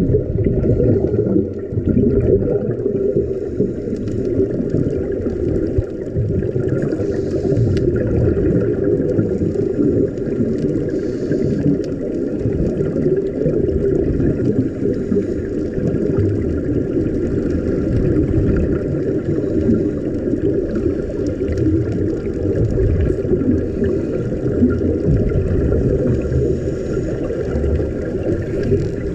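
Muffled underwater noise on a submerged camera: a steady low rumble with faint hissing now and then.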